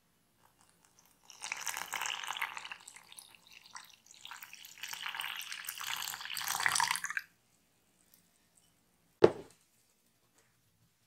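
Water poured in a thin stream into flour in a glass dish, in two runs with a short break between, the second ending loudest. A single sharp click about nine seconds in.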